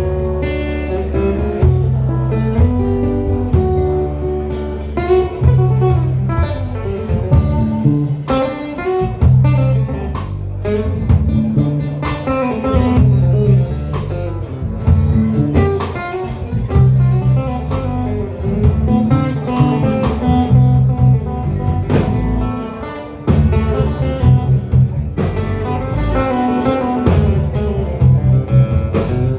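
Live blues-rock band playing an instrumental break: a lead guitar over bass and drum kit.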